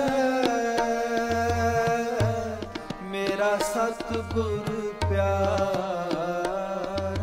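Sikh kirtan: a male singer holds long, sliding notes of the hymn over harmonium and tabla. The tabla's deep bass strokes sound under the melody every second or so.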